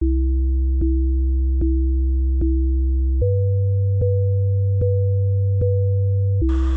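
Simple electronic intro music: a steady pure synth tone over a deep bass, with a click about every 0.8 seconds. The tone steps up to a higher note about three seconds in and drops back near the end, when a hiss comes in.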